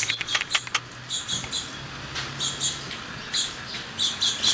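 A small bird chirping: short, high notes in quick runs of two to four, repeated several times. There are a few sharp clicks near the start.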